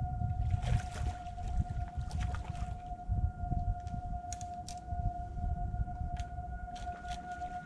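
A steady, unwavering high tone sounds throughout over a loud low rumble. A few sharp clicks, as of stones knocking on a rocky shore, come through the middle.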